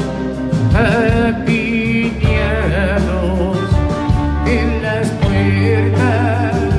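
Rock band playing live: electric guitars, bass and drums, with a lead melody that wavers in vibrato over sustained bass notes and steady drum hits.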